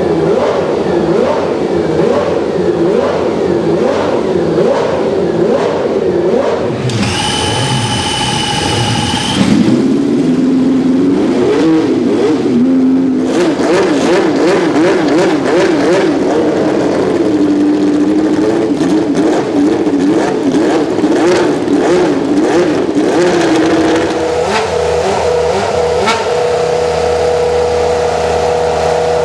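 Historic Formula 1 racing engines revved in the pit garage, several cars heard in turn, blipped up and down repeatedly. About seven seconds in, a high steady whine lasts a couple of seconds before an engine picks up and revs. Near the end one engine holds a steady high idle.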